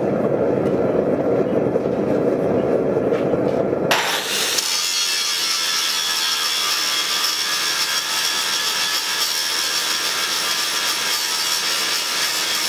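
A low, steady rushing noise for about four seconds, then an angle grinder bites into a forge-welded steel billet clamped in a vise. It grinds steadily and loudly with a high whine, taking the surface down to look for a delamination in the weld.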